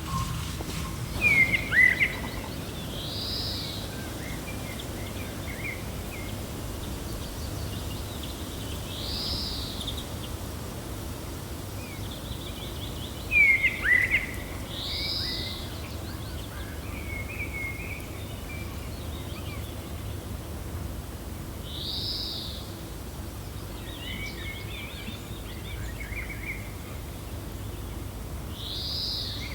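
Birds calling over a steady low rumble of wind. A short arched whistle repeats about every six seconds, and two louder bursts of sharp chirps come about two seconds in and again near the middle.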